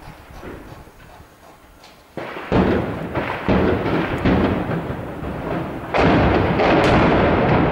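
Heavy shelling: a sudden loud blast a little over two seconds in, followed by several more blasts with a rolling echo between them, and another large blast about six seconds in whose echo carries on loud to the end.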